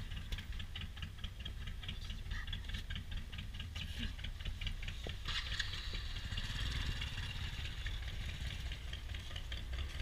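An engine idling, with a steady low rumble and a fast, regular ticking over it.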